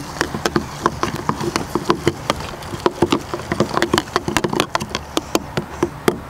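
A spoon stirring in a plastic cup, clicking and scraping against its sides in rapid, irregular ticks, dissolving potassium iodide in water to make the catalyst solution.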